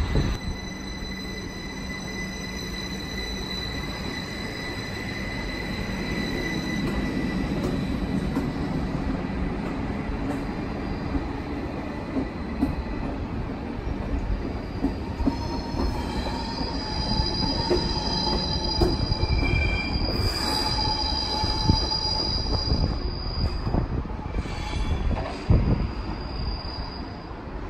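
Steel train wheels squealing on curved track, high-pitched over a low rail rumble. One squeal fades out about seven seconds in. A second, with several tones at once, starts about fifteen seconds in and lasts until near the end.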